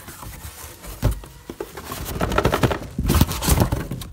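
Cardboard shipping box being opened by hand: flaps pulled back and cardboard rustling, crinkling and scraping in irregular bursts with sharp clicks, loudest past the middle.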